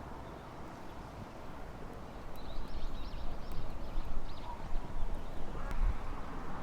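Wood fire burning in a small titanium wood stove, with a few sharp crackles over a low rumble. About two seconds in, a bird sings a short run of high notes.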